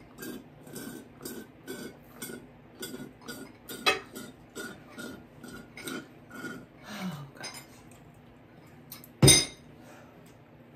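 Close-miked chewing with wet mouth clicks, about three chews a second, for the first seven seconds. About nine seconds in comes a single loud thump.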